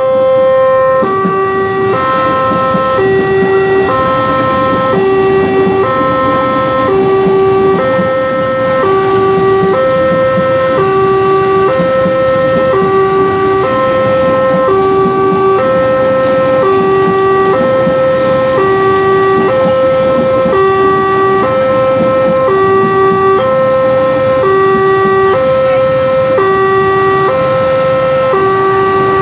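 Electronic railway level-crossing alarm sounding two alternating tones, high then low, about one cycle a second, without a break. Under it runs the steady rumble of electric commuter trains rolling through the crossing.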